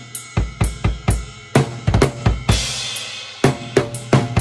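Drum kit played with a Tama Woodworks 14x8-inch snare: snare and bass drum hits about four a second with cymbals. A little past halfway the drums stop briefly while a cymbal rings out, then the beat comes back in.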